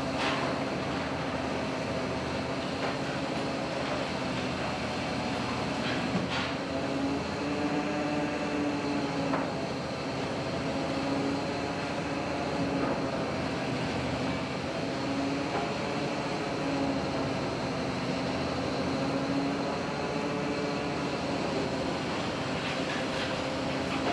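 Steady drone of a fishing boat's engine and deck machinery, with a humming tone that swells and fades over and over and a few sharp clacks.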